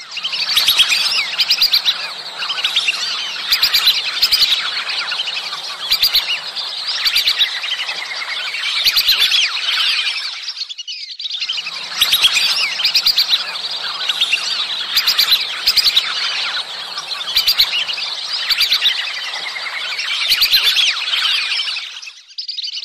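A flock of whistling ducks giving many overlapping high, squeaky whistled calls, without a break except for a short pause about eleven seconds in. These are the breeding-season calls used as a lure.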